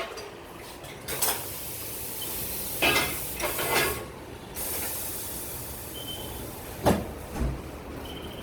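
Steady hiss of compressed air in a tyre workshop, with a few sharp metallic knocks; the hiss breaks off briefly about four seconds in, then resumes.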